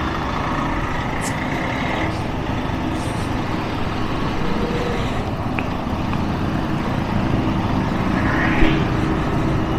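Slow-moving scooter and motorcycle traffic: the rider's own Yamaha NMAX 155 and the surrounding scooters' small engines running at low speed, making a steady traffic rumble.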